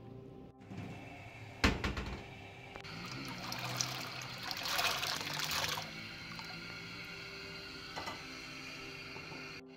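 Soaked red beans poured into a pot of water, splashing for about three seconds. A single sharp knock comes shortly before.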